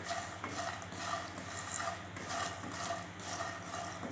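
A wooden spatula stirring and scraping puffed lotus seeds (makhana) around a non-stick frying pan as they fry in ghee, in regular strokes about two to three a second, over a steady low hum.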